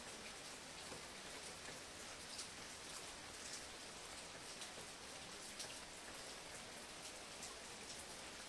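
Faint, steady rain falling, with scattered individual drops ticking through it.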